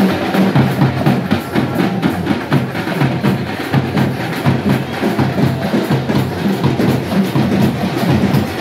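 Drums played in a fast, dense rhythm, many strokes a second without a break: festival percussion.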